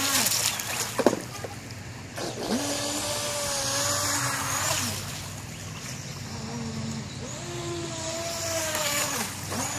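Brushless electric motor of an Atomik Barbwire 17-inch RC speedboat whining at speed over the hiss of its spray. The pitch falls away and climbs back several times as the throttle is eased off and opened again. There is one sharp knock about a second in.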